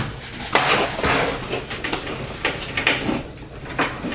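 Clattering and knocking of SATA power cables and their plastic connectors being pulled out and handled against a metal computer case: several separate clatters.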